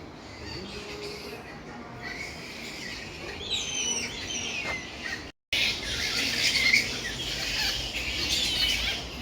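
A busy chorus of many birds calling and squawking, growing louder about two seconds in with a run of falling whistled calls. The sound cuts out for a moment about halfway, then the chorus comes back louder.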